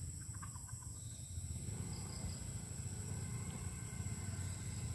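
Steady high-pitched drone of insects such as crickets, over a low steady rumble.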